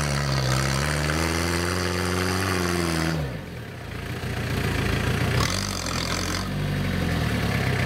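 Mini tractor engine revving under throttle: it climbs, holds for about three seconds, then drops back. It revs up again briefly twice in the second half.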